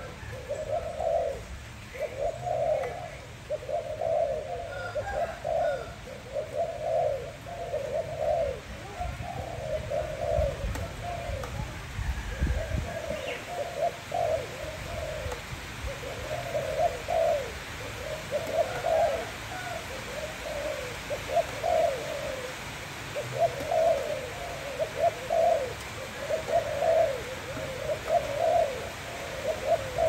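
Spotted dove cooing: short, low coo phrases repeated one after another with brief gaps between them.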